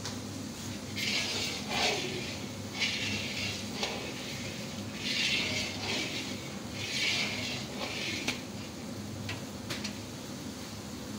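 Flat metal spatula scraping across a large wok as a thick chutney cooks down, in several strokes about a second long, with a few sharp clicks of metal on metal.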